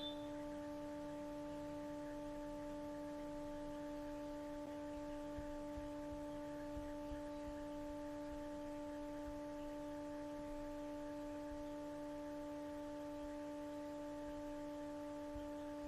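Steady, unchanging hum of a simulated lathe spindle running in the Swansoft CNC simulator, made of several evenly spaced tones. A short high beep sounds right at the start.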